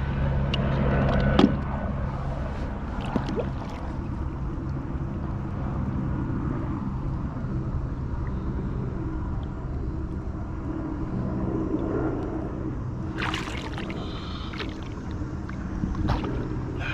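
A steady low engine hum, like a motorboat running, under wind noise on the microphone, with a few knocks early on and a brief burst of noise about thirteen seconds in.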